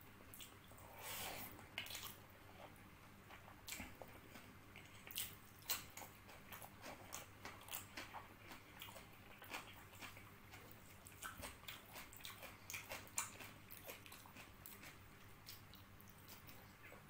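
Close-up eating sounds from a person eating spiced chicken, rice and boiled egg with their hands: wet chewing and smacking of the mouth, heard as many short, sharp clicks.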